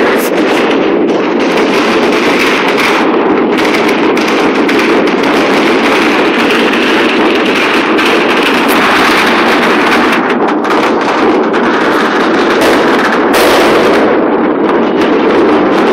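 Massed fireworks and firecrackers going off without a break: a loud, continuous crackle of overlapping bangs.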